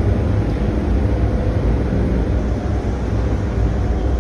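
Vertical indoor skydiving wind tunnel running: a loud, steady rush of air with a faint, even hum underneath.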